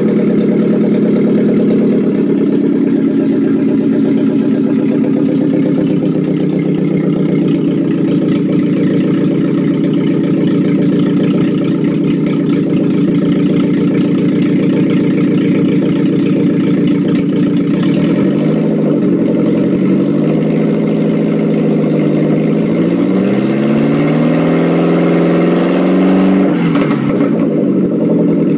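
Rebuilt 2.0-litre Ford Zetec four-cylinder engine running on a stand just after its first start. It runs slightly faster at first and settles to an idle within a couple of seconds. In the second half the revs rise and fall a few times.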